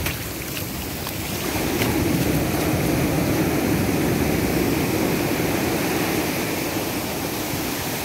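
Surf washing in over sand and rocks as a steady rush of water. A wave swells about a second and a half in and eases off toward the end.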